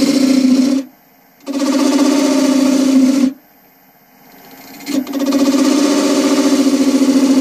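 Turning tool cutting into a wood blank spinning on a wood lathe, a loud buzzing, hissing cut. The cut breaks off twice, for about half a second near the one-second mark and for about a second and a half in the middle, leaving only the lathe's faint running before the tool bites again.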